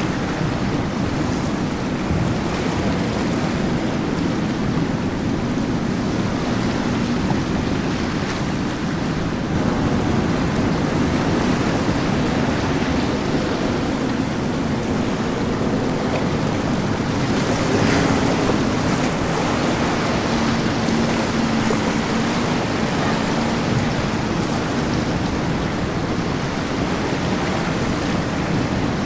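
Powerboats running at speed through an inlet: a steady rush of churning wake water and wind on the microphone, with a faint low engine drone beneath that dips slightly in pitch a little past the middle. A brief louder splash comes just before that.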